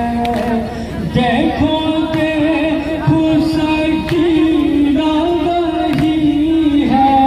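Noha, the Muharram lament, sung by a male reciter into a microphone and amplified over loudspeakers, with long drawn-out held notes.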